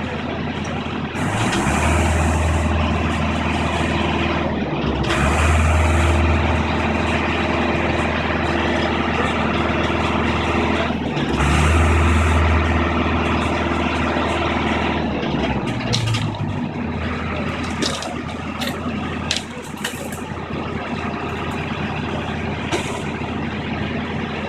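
Long-reach demolition excavator's diesel engine working under hydraulic load, swelling three times in the first fifteen seconds, each swell opening with a short hiss. It then settles lower, with scattered sharp knocks in the second half.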